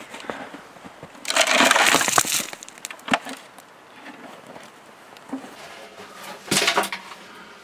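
Dug-out rocks and earth tipped from a bucket onto snow: a crunching rattle lasting about a second. A single sharp knock follows, and a second, shorter crunch of rock comes near the end.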